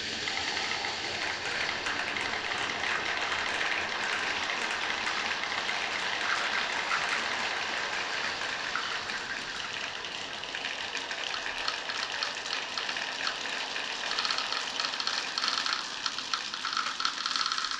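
Many marbles rolling and clattering along a marble run track: a continuous rolling rumble with a dense scatter of small clicks.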